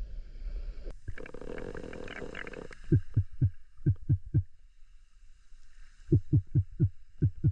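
Underwater glottal calls made in a spearfisherman's throat to lure fish within range of his speargun: two runs of about six short, low pulses, each falling in pitch, about three a second, starting about three seconds in and again about six seconds in.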